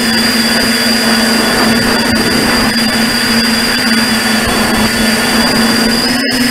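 RCExplorer Tricopter V4's brushless motors and propellers running steadily in flight, picked up by the onboard camera: a steady hum with a thin high whine over a rushing noise. The sound cuts out for a split second near the end.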